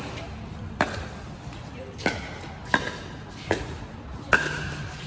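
Pickleball rally: a hard plastic ball struck back and forth by paddles, five sharp pocks less than a second to about a second and a quarter apart, each with a brief ring. The last hit is the loudest.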